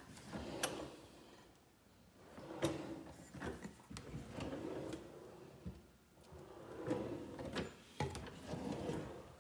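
Kitchen drawers being pulled open and pushed shut, sliding on their runners, with several sharp clicks along the way.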